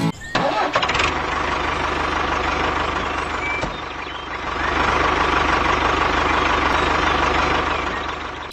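An engine running steadily with a fast even pulse, growing louder about four and a half seconds in.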